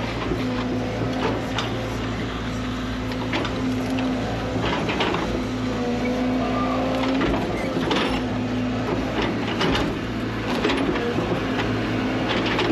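Excavator engine running steadily under load while its bucket works a large tree stump out of the ground, with repeated sharp cracks and snaps of roots and wood breaking.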